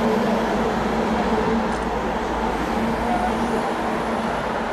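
Steady hum of an idling vehicle engine over street noise, holding an even level throughout.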